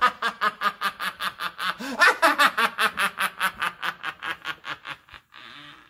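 A man's long, rapid cackling laugh in an exaggerated villain's manner, about six or seven "ha"s a second. It fades out a little before the end into a faint hiss.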